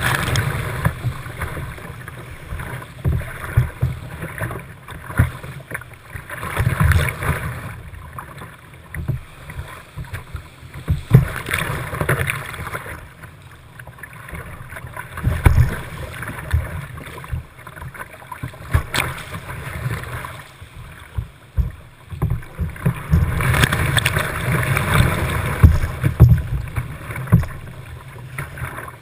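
Whitewater rapids rushing around a kayak, with repeated splashes and low thumps as waves slap against the hull and wash over the deck-mounted camera. The splashing is loudest near the start and again a few seconds before the end.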